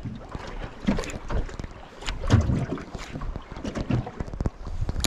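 Water slapping and splashing against the hull of a small boat, with wind buffeting the microphone and scattered knocks on the boat.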